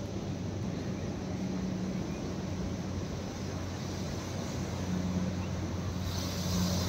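A steady low engine drone over a constant wash of outdoor noise, with a brief rise of hiss near the end.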